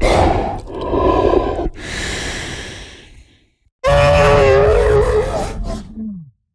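Monster creature sound effect. A rough growl lasts about a second and a half and fades into a hiss. After a short gap comes a loud, pitched, wavering cry that drops away near the end.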